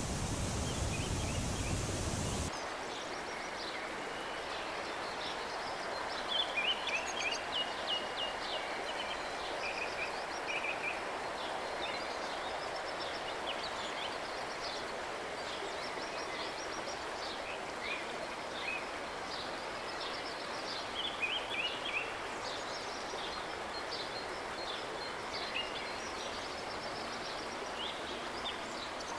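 Rushing water of a shallow river riffle for the first couple of seconds, cutting off abruptly to a steady outdoor hiss with many short, high bird chirps scattered throughout.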